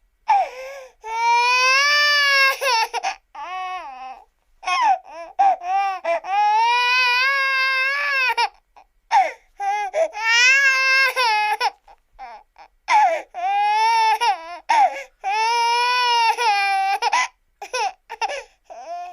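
A baby crying: long high wails of a second or two each, broken by short sobbing catches and gasps, with a few short sobs near the end.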